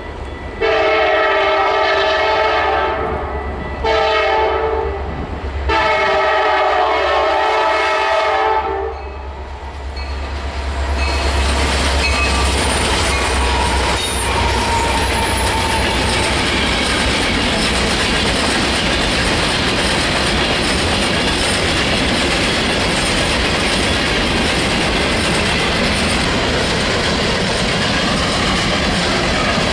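Diesel freight locomotive's horn sounding three blasts, long, short, long, over the deep rumble of the locomotives' engines as they pass. Then the steady rumble and clatter of covered hopper cars rolling by on the rails.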